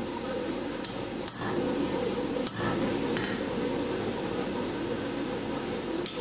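A hammer tapping a small punch held against a thin iron rod on the anvil, marking runes into ring stock: four sharp metallic taps, three in the first few seconds and one near the end, over a steady background hum.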